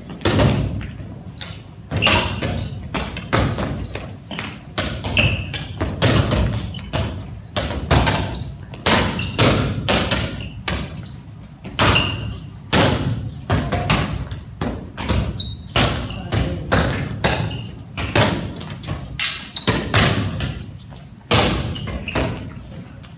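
Several badminton rackets batting inflated balloons upward: many irregular thuds, one or two a second, ringing in a large hall.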